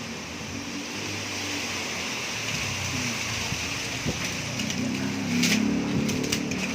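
Strong storm wind gusting through trees, with leaves rustling. It builds to a louder gust about five seconds in, with a few sharp clicks and knocks from things rattling in the wind.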